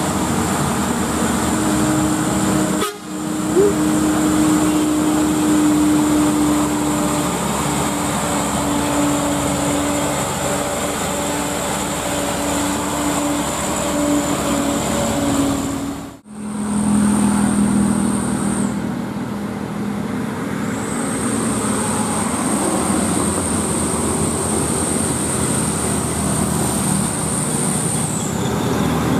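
Diesel engines of heavily loaded light dump trucks, among them a Mitsubishi Canter, running hard as they climb a steep grade, with steady engine drone. The sound breaks off sharply twice, about three seconds in and about halfway through.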